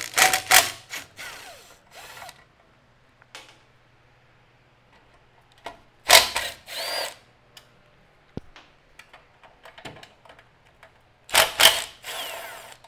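Cordless drill with a socket bit running in three short spurts on the bolts of a small engine's air cowling, with light clicks and knocks of handling in between.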